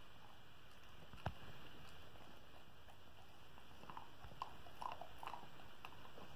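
Border collie chewing a dog treat: one sharp crunch about a second in, then a run of small crunches and clicks a few seconds later.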